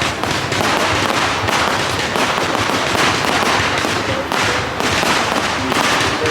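Fireworks display: a dense, continuous barrage of bangs and crackling with no pause.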